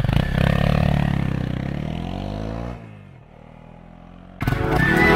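Honda CRF250L's single-cylinder engine revving as the motorcycle pulls away, its pitch sliding down and its sound fading over the first three seconds. About four seconds in, music starts abruptly.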